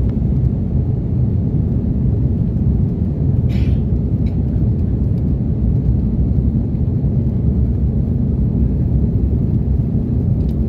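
Airbus A330-300 airliner in flight, heard from inside the passenger cabin: a steady, deep noise of the engines and the air rushing past the fuselage.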